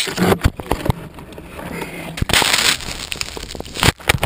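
Close handling noise on a GoPro camera: crackling rustles of dry grass against it and scattered knocks and clicks on the housing, in irregular bursts as the model is lifted out of the grass.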